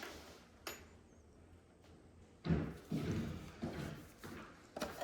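Dull knocks and thumps of objects being handled, a run of them starting about halfway through, after a single sharp click near the start.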